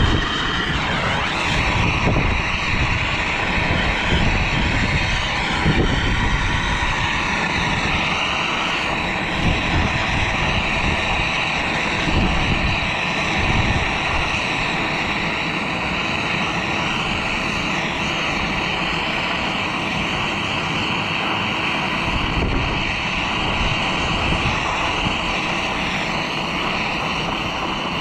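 A handheld gas torch burning with a steady roaring hiss as it heats an HVAC inducer blower wheel to free it from the motor shaft. Wind buffets the microphone throughout.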